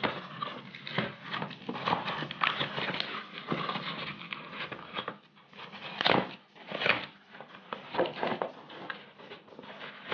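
Cardboard parcel wrapped in plastic tape being torn and pulled open by hand: irregular rustling, crinkling and ripping of card and tape, with several louder rips in the second half.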